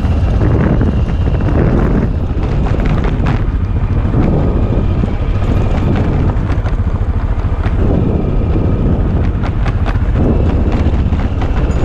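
Wind buffeting a helmet-mounted microphone over a 1992 Aprilia Pegaso 650's single-cylinder engine running while riding a rough gravel track, with scattered clicks and knocks throughout.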